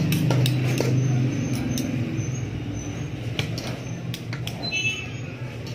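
A steady low hum runs under scattered sharp clicks and scrapes as a spoon and hands work crushed yeast powder into a heap of cooked rice.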